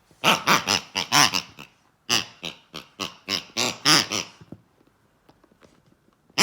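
Pigs calling in two rapid bouts of short, pitched cries, several a second, the second bout longer, with another burst starting right at the end.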